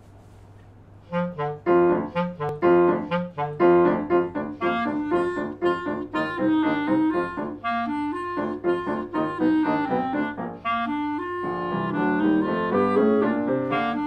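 Clarinet playing a lively tune with piano accompaniment, starting about a second in; the first notes are short and detached, and longer, more joined notes follow.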